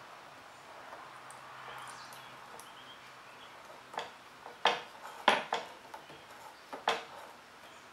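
Handling noise of thread being wrapped onto a fishing rod blank on a wooden jig: a faint hiss, then about five sharp clicks and knocks in the second half.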